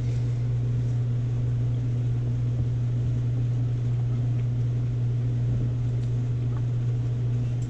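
Steady, loud electrical hum from a running appliance, a low even drone that cuts off suddenly at the end.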